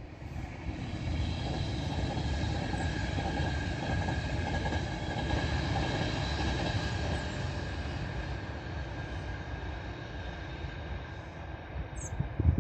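A multi-coach passenger train passing at line speed on an electrified main line: a steady rush and rumble of wheels on rail with a faint steady whine over it, building in the first second or so and easing away near the end.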